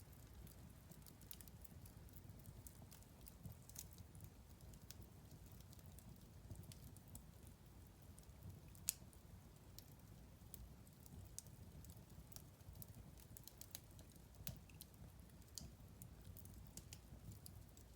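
Wood fire burning in a fireplace: a soft low rumble of flames with scattered small crackles and one louder pop about nine seconds in.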